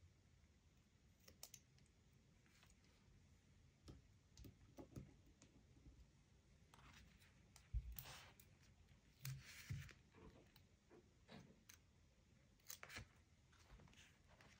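Faint handling of paper and stationery: scattered light clicks and brief paper rustles, with a soft thump about eight seconds in.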